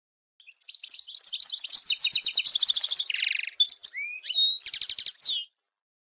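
European goldfinch singing one song phrase of about five seconds: quick twittering notes and trills, a buzzy note about three seconds in, then rising whistles and a fast trill near the end.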